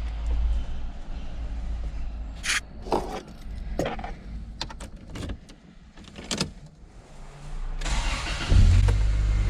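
Keys rattle and several sharp clicks, then about eight seconds in a 1993 Toyota Corolla 1.8 engine cranks briefly and starts, settling into a steady idle.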